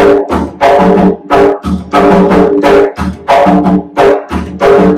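Bomba barrel drum played with bare hands in a steady repeating bomba rhythm, about three strokes a second. Deep ringing open tones alternate with short, sharp slaps.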